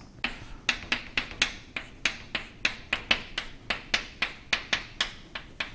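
Chalk on a chalkboard while a row of ones, minus signs and commas is written: a quick series of sharp chalk taps, about three or four a second.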